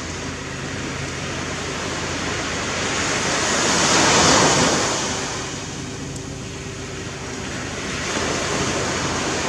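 Sea surf on a beach: a steady wash of waves that swells to its loudest a little before the middle as a wave breaks, then eases off.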